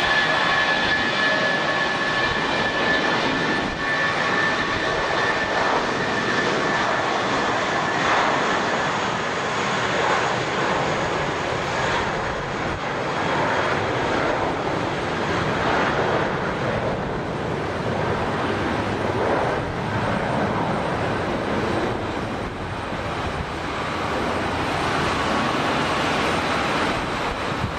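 Jet airliner's turbofan engines running: a steady rush with a slow wavering, and a high whine that fades out over the first several seconds.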